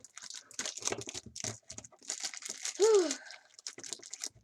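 Foil booster packs and cardboard packaging being handled, with rapid crinkling and small taps. About three seconds in, a short pitched sound rises and then falls; it is the loudest moment.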